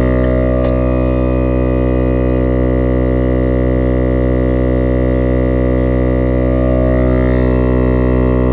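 Viair 88P portable 12-volt air compressor running steadily, a constant droning hum, as it pumps up a car tire. There is a faint click under a second in.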